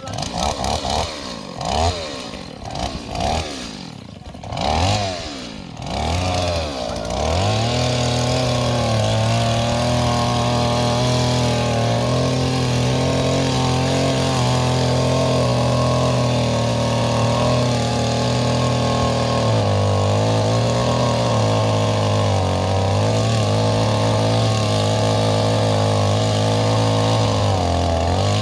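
Two-stroke chainsaw revved in short bursts for the first several seconds, then held at a steady high-revving run, cutting into the base of a tree trunk.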